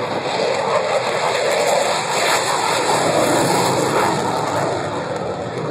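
Aircraft passing in flight, a steady engine rush that swells to its loudest around the middle and then eases off.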